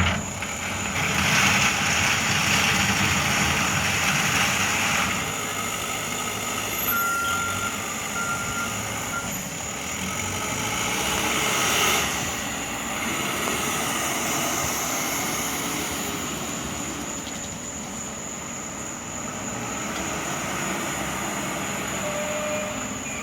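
Heavy truck engine running at a road construction site, loudest for the first few seconds and again around twelve seconds in, with a reversing alarm beeping now and then.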